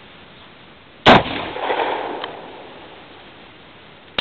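A single shot from a short-barrelled Rossi riot 12-gauge shotgun firing a 2 3/4-inch Challenger steel shot load, about a second in, with an echo that dies away over about a second and a half. A short sharp click comes near the end.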